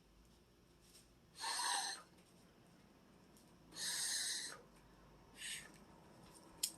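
Three short breathy hisses, about two seconds apart, the last one weaker: a person breathing out heavily.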